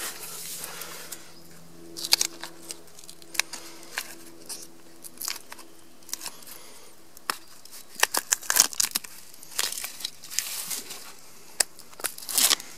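Papery birch bark being peeled by hand from a dead birch log: irregular crackling and tearing, busiest in the second half and again near the end.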